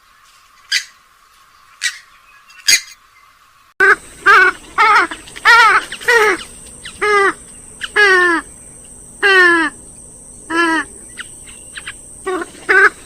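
Swamphen/moorhen-type rail calls from a bird-call recording. First comes a few short, sharp calls about a second apart. Then, from about four seconds in, a louder recording with background hiss gives a run of harsh, downward-bending cackling calls, roughly one or two a second.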